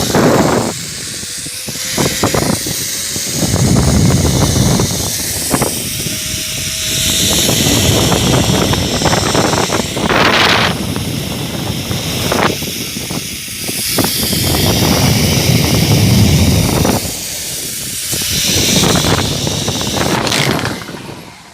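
Wind rushing and buffeting over a handheld phone's microphone during a zipline ride, loud and surging in waves, dropping away just before the end as the ride slows.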